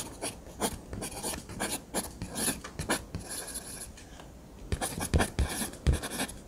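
Pen scratching across paper in quick, irregular strokes, like handwriting. It eases off briefly midway, and the strongest strokes come near the end.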